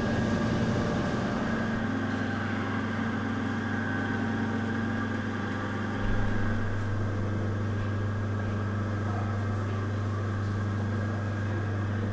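Steady machinery hum: a low drone that grows stronger about two seconds in, with a thin higher whine above it and a brief low bump about six seconds in.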